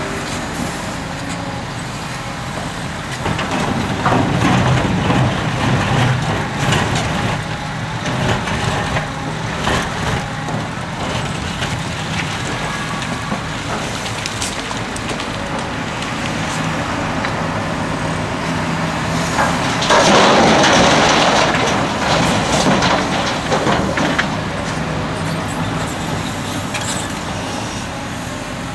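Liebherr R974B hydraulic excavator at work: its diesel engine running steadily under load while the bucket digs through broken rock, with scattered knocks and clatter of stone. About twenty seconds in comes a loud burst of rushing, clattering noise lasting about two seconds.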